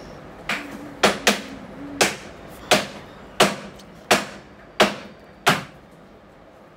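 A pan of cake batter being tapped on the table, about nine sharp knocks in a steady rhythm roughly every two-thirds of a second, to settle the batter and knock out air bubbles before baking.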